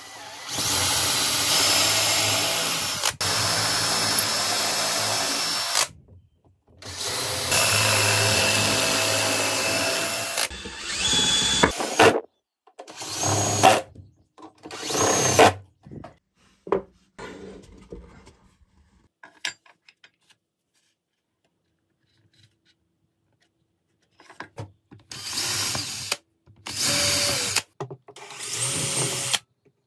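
DeWalt 18 V XR cordless drill boring pilot holes through plywood into a pine board's edge in two long runs of several seconds. Then come short bursts as screws are driven home. After a pause, several more short runs of drilling follow.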